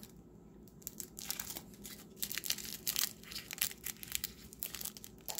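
Small clear plastic baggies of diamond-painting drills crinkling as fingers squeeze and turn them close to the microphone, in irregular crackles that pick up about a second in.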